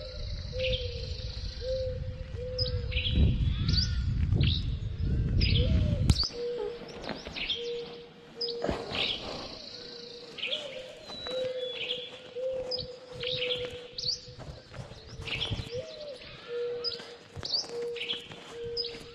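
Small birds chirping and calling repeatedly over a steady low tone. A low rumbling noise underneath stops abruptly about six seconds in.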